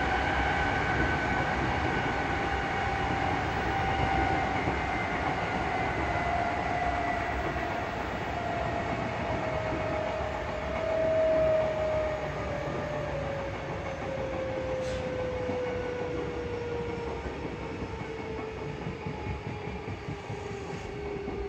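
Interior running sound of an Odakyu 8000 series field-chopper-controlled electric train. The traction motor and gear whine falls steadily in pitch as the train slows, over a steady rumble of wheels on rail.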